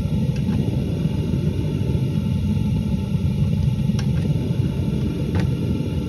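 A steady, loud low rumble without pitch, with a few light clicks about half a second, four seconds and five and a half seconds in.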